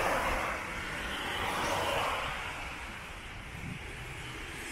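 Car traffic on a wet road: tyres hissing on the rain-soaked asphalt as cars pass, louder in the first two seconds and then easing off.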